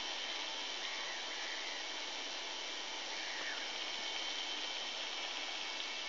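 Steady hiss with a faint high whine, broken by a few faint short common tern calls about a second in and again after three seconds.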